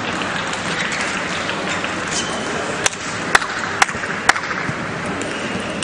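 Four sharp clicks of a table tennis ball, evenly about half a second apart, a little past the middle, over the steady hiss of crowd noise in the hall.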